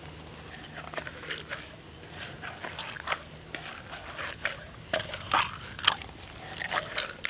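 Hawthorn berries being mashed by hand with a splash of water in a titanium mug, giving irregular crunching and squishing. The strokes grow louder and come closer together from about five seconds in.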